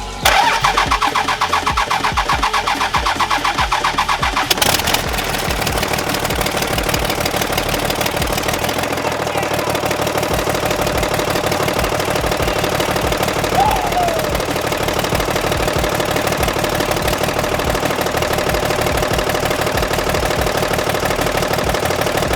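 6.7 Cummins inline-six turbo diesel cranking on the starter in an even rhythm for about four and a half seconds, then catching and running steadily: the first start of the newly swapped engine.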